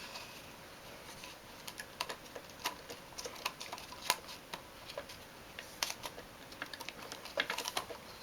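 Irregular small clicks and taps of hands handling a Lubitel 2 camera and a 120 film spool while threading the film's backing paper into the take-up spool.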